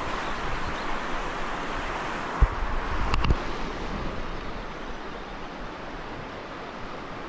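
Steady rush of flowing river water, with a couple of dull knocks about two and a half and three seconds in.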